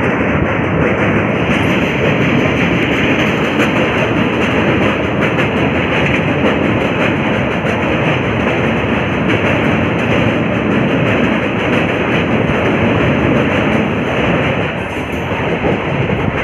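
Passenger train running at speed over a steel truss bridge: a loud, steady rumble and clatter of the coach's wheels on the rails, heard from the open doorway. It turns a little quieter near the end.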